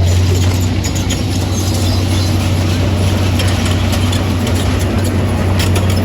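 A heavy engine running steadily at a low hum, with scattered light clicks and knocks over it.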